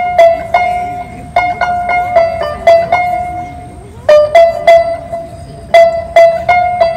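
A plucked string instrument played solo: sharply plucked notes, mostly on the same high pitch, repeated in short phrases with brief pauses between them.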